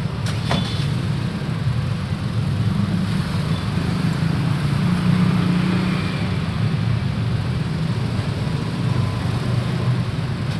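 City street traffic: a steady rumble of passing road vehicles, with a short sharp click about half a second in.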